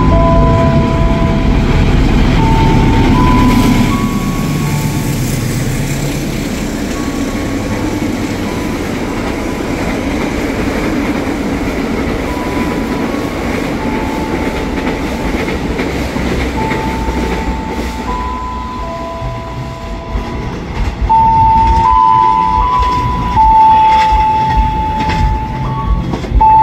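A diesel locomotive-hauled passenger train passing through the station: heavy engine rumble for the first few seconds, then the steady run of the coaches' wheels on the rails, growing louder again near the end. A slow series of single held notes, changing pitch every second or so, sounds over the train throughout.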